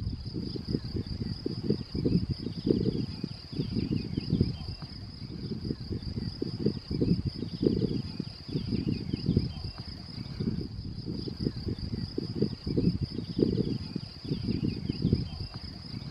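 A cricket trilling continuously on one high pitch, with wind buffeting the microphone in irregular gusts.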